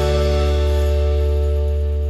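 Closing music: a final chord held and ringing on, beginning to fade away near the end.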